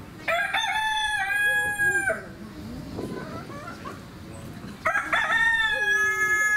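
A rooster crowing twice, each crow about two seconds long, the second starting about five seconds in.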